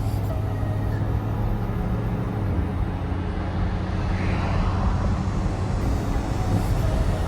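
Pickup truck driving on the road: a steady low engine hum with tyre and road noise.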